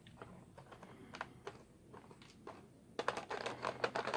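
Fingers clicking and rustling against a clear plastic blister tray while picking out small action-figure accessories. Scattered light clicks that come thicker about three seconds in.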